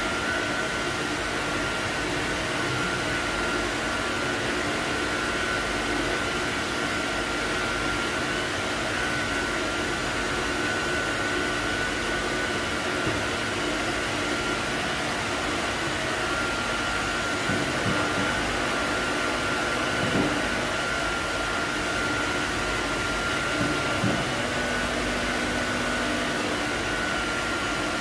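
Steady whoosh and hum of a running motor-driven blower with a thin high whine over it; a few soft knocks come about two-thirds of the way through.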